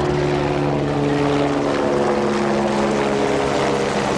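A firefighting aircraft flying past, its engine drone steady and loud with a pitch that slowly falls.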